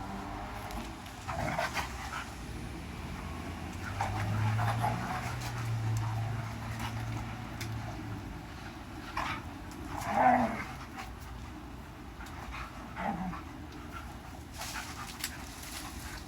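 Pet dogs playing rough with each other: panting, with a few short whimpers and scuffles.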